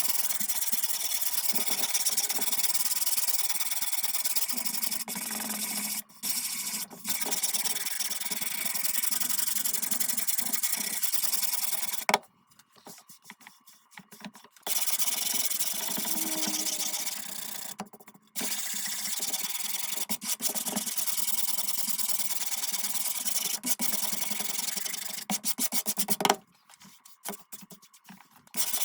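Sandpaper scrubbing across a wooden tabletop, a steady rasping hiss that pauses briefly twice and stops for a couple of seconds twice, about twelve seconds in and near the end.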